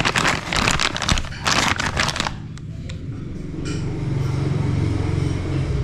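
Plastic packaging around new strut mounts rustling and crinkling as the parts are handled, in several loud bursts over the first two seconds. After that a quieter low steady hum.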